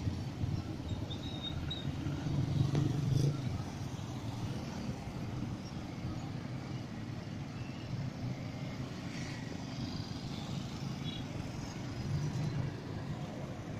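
Steady low rumble of road traffic and vehicle engines, with a louder passing vehicle about three seconds in.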